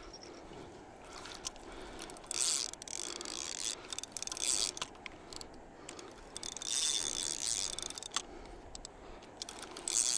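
Fishing reel being cranked in short spells with pauses between, its gears whirring with a high whine and clicking, as line is wound in against a heavy weight on the hook.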